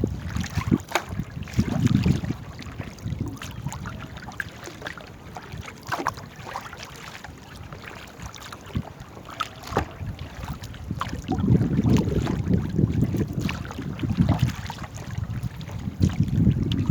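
Small boat being paddled: scattered knocks and splashes from the paddles, with wind buffeting the microphone, heaviest at the start and again over the last five seconds or so.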